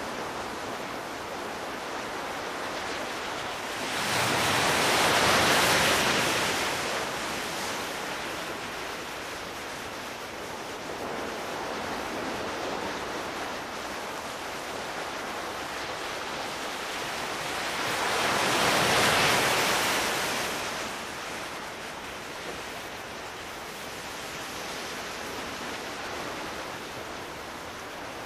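Sea waves washing in over a steady surf hiss. Two larger waves break, about four seconds in and again about fourteen seconds later.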